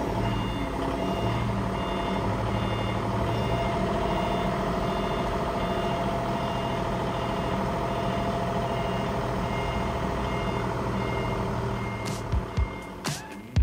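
Diesel engine of a Lonking LG35DT counterbalance forklift running steadily while its mast lifts the forks, with the truck's warning beeper sounding in a steady repeating pattern. Near the end the engine sound gives way to a few sharp knocks.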